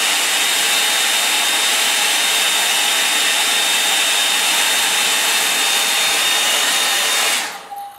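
Hand-held hair dryer blowing steadily: a loud rush of air with a thin high whine on top. It is switched off and winds down near the end.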